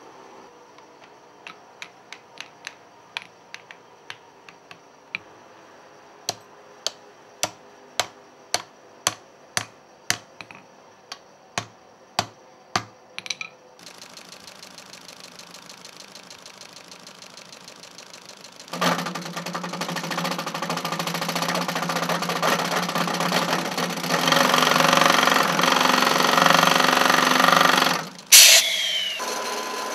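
Workshop tools on wooden handle stock: a run of sharp knocks, roughly one a second, through the first half, then a powered workshop machine starts about two-thirds in and runs loudly and steadily before cutting off abruptly near the end.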